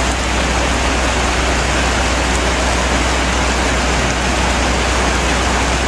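Steady heavy rain hissing on the road and vehicles, with a constant low hum underneath.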